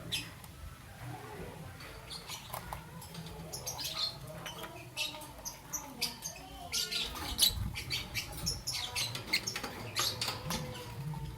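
Young peach-faced lovebird chirping in rapid, short, high squeaks, sparse at first and getting busier from about four seconds in.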